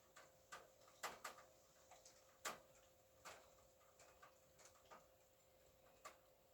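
Near silence: a faint steady hum with about a dozen faint, sharp clicks at irregular intervals.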